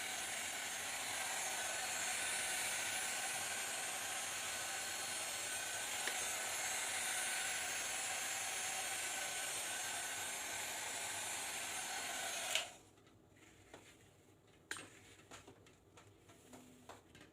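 Hair dryer blowing with a steady rush of air and a faint high whine, then switched off with a click about three-quarters of the way through. A few light clicks and handling noises follow.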